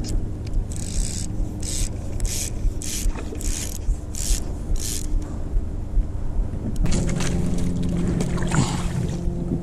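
Fly line being stripped in hand over hand while a carp is hand-lined in without a net: a quick, regular series of short rasps as the line is pulled through the rod guides. From about seven seconds in, a steady low hum joins it.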